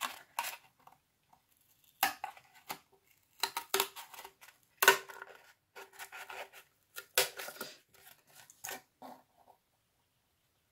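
Scissors cutting a strip of cardboard: a run of separate snips, roughly one a second, that stop shortly before the end.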